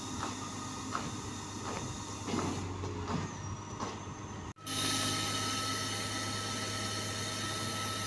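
Concrete pump truck's engine running steadily. After a sudden break about halfway through it carries on a little louder, with a steady high whine on top.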